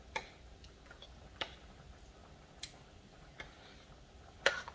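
A spoon knocking against the stoneware crock of a slow cooker while thick cheese sauce is stirred: about five scattered sharp clicks, the loudest near the end.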